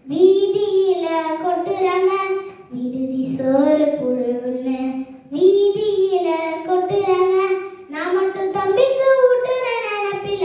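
A young girl singing a Tamil folk song unaccompanied, in four long, held phrases with short breaks between them.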